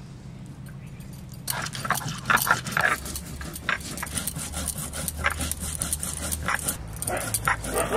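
A dog making short, high cries again and again from about a second and a half in.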